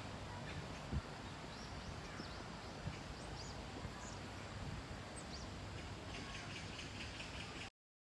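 Open-air park ambience: a steady low background hiss and hum with a few faint bird chirps, and a single short knock about a second in. The sound cuts off abruptly to silence near the end.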